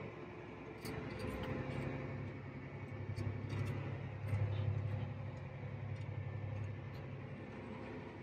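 Tractor engine running steadily under load, heard from inside the cab as a low hum, with a few faint light clicks.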